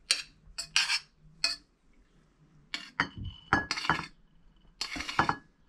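Metal spoon scraping and clinking against a stainless steel saucepan while couscous is spooned out of it, a series of sharp clinks and scrapes, some leaving the pan ringing briefly.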